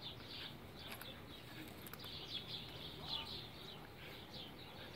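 Small birds chirping in the background: short, high, falling notes, a few a second, coming in bursts.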